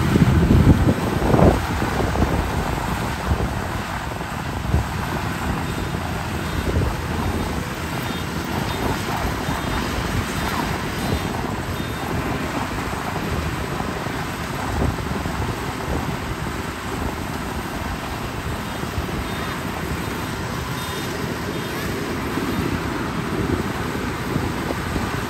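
Zoomlion FH100E rice combine harvester running steadily while cutting rice: a constant engine and threshing-machinery drone. Wind buffets the microphone in the first second or two.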